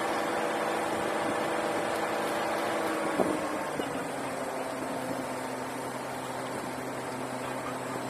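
Borewell drilling rig's engine running steadily. About three seconds in, a knock sounds and the engine note drops to a lower, steadier hum.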